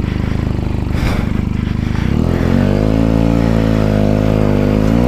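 Benelli TNT 300 motorcycle engine with a changed exhaust running under way; about two seconds in the revs rise and then hold at a steady higher pitch.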